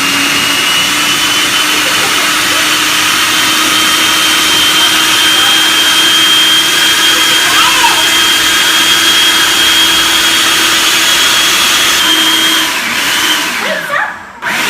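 Countertop blender running steadily at high speed, blending frozen strawberries, blueberries, spinach and applesauce into a smoothie. Its motor pitch sags and the sound briefly winds down near the end.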